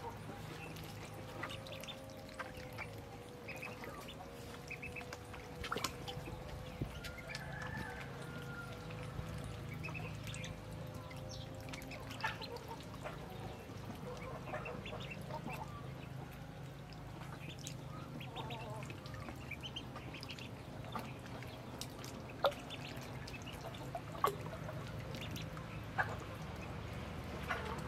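A flock of ducklings peeping in short, scattered calls over a steady low hum, with a few sharp clicks in the last few seconds.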